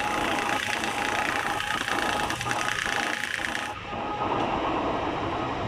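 Machine-shop machinery running with a steady hum. Over it a dense, rapid rattling hiss cuts off sharply about two-thirds of the way through, leaving the hum.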